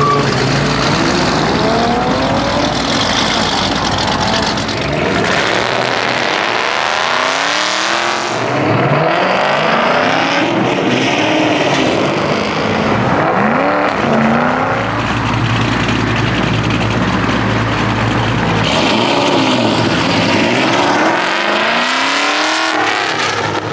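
Several car engines revving hard, one after another: repeated rises and falls in pitch over a steady low engine drone.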